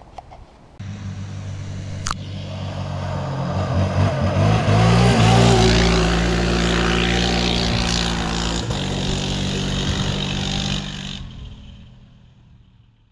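Yamaha Raptor 700R ATV's single-cylinder four-stroke engine running hard as the quad rides past on a dirt road: it grows louder as it approaches, is loudest about five seconds in, then draws away. There is a single sharp click about two seconds in, and the sound cuts off and fades near the end.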